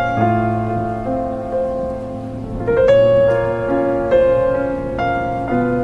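Background music: a gentle piano piece, notes and chords struck about once or twice a second and left to ring.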